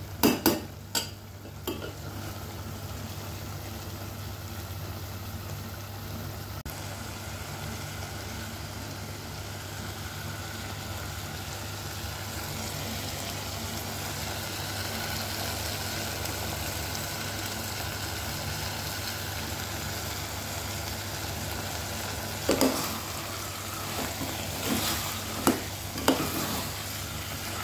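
Beef pieces and thick gravy sizzling in a metal pot on a gas burner, with a metal spoon stirring, scraping and knocking against the pot in the first couple of seconds and again near the end.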